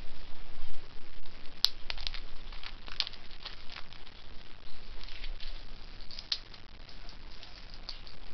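Shell of a soft-boiled egg being cracked and peeled by hand: scattered small crackling clicks, with one sharper click about a second and a half in.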